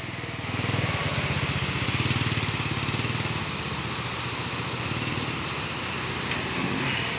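A small engine running steadily, slightly louder from about half a second in.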